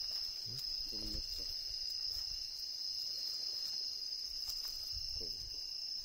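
A singing insect, cricket-type, keeping up one steady, unbroken high-pitched trill.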